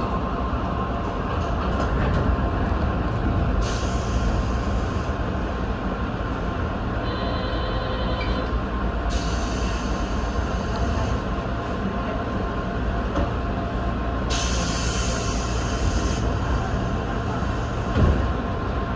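Stationary electric train idling at a platform: a steady hum of onboard equipment, with three stretches of hiss, a brief high tone about seven seconds in, and a short thump near the end.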